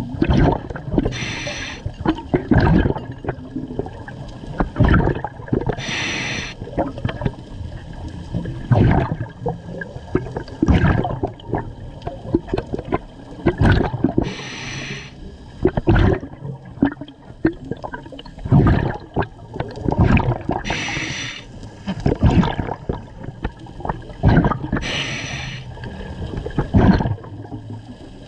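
Scuba diver breathing through a regulator underwater: five hissing inhalations a few seconds apart, each followed by bursts of exhaled bubbles gurgling past the mouthpiece.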